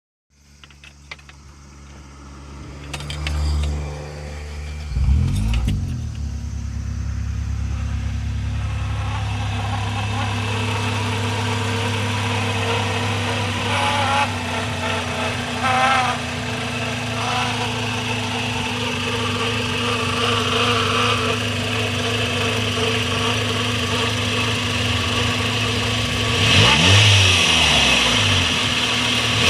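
A Toyota Super Levin's engine starting about five seconds in, then idling steadily, with a short rev near the end. The recording is made to capture an abnormal noise from the engine.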